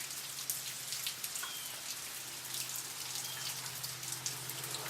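Rain from a brief thunderstorm falling steadily, a continuous hiss with many separate drops striking a surface in sharp irregular clicks.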